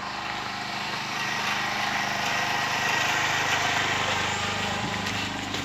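An engine running steadily, with a hum that carries throughout and a rougher noise that grows louder about a second in and eases off again near the end.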